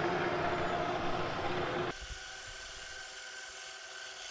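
Takisawa 14x40 metal lathe running with a 3D-printed plastic change gear spinning in its chuck while a tailstock drill bit bores out the gear's undersized centre hole. About two seconds in the sound drops abruptly to a quieter, steadier running.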